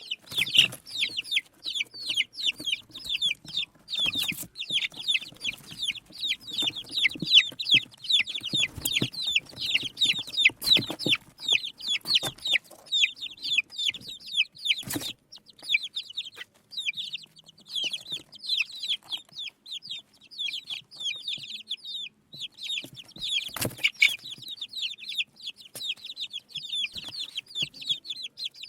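A brood of baby chicks peeping constantly: many short, high, falling peeps overlapping several times a second. A few sharp knocks come through now and then.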